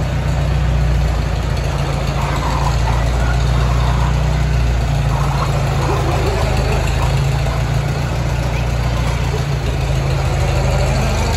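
1949 Farmall M tractor's four-cylinder engine running at idle.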